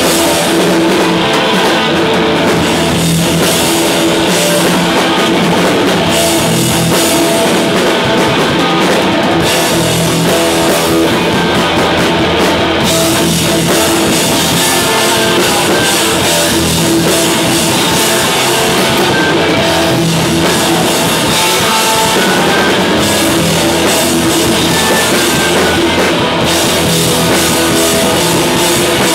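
Live rock band playing loud and without a break: electric guitars, bass guitar and drum kit, with a guitarist singing into the microphone.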